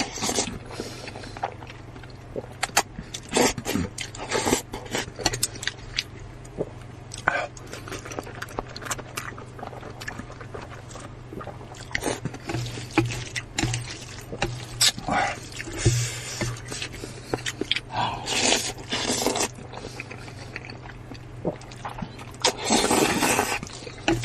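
Utensils working food: repeated scraping and clicking, with several short noisy bursts, over a steady low hum.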